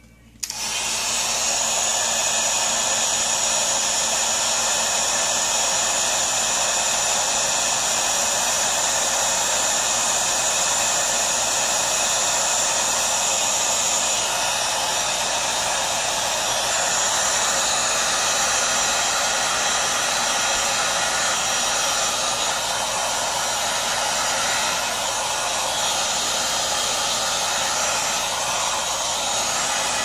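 Electric heat gun switched on about half a second in and blowing steadily, shrinking adhesive-lined heat-shrink tubing over a freshly crimped cable lug.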